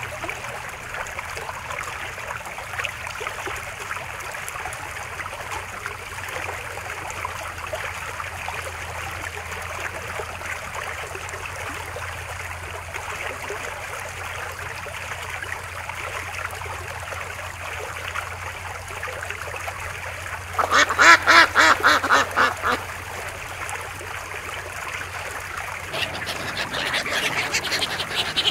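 Ducks quacking over a steady background hiss; about twenty seconds in, a loud, rapid run of quacks lasts about two seconds, and another bout of calling starts near the end.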